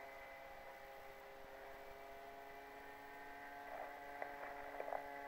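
Faint, steady electric whine of an FMS Cessna 182 XL foam model's brushless motor in level flight, a hum of several fixed pitches, with a few short faint chirps near the end.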